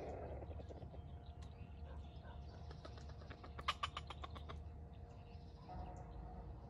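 Quiet outdoor ambience: small birds chirping over a steady low hum, with a quick run of sharp clicks a little past the middle.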